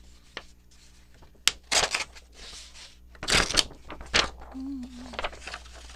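Pages of an old book being pulled apart by hand: a sharp click about one and a half seconds in, then paper crackling and rustling in short bursts, the loudest a little past the middle.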